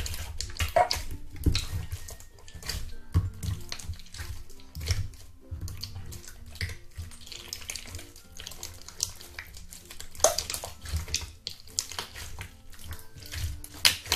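Clear slime mixed with store-bought slime being kneaded and squeezed by hand: irregular wet squelches and sharp clicks.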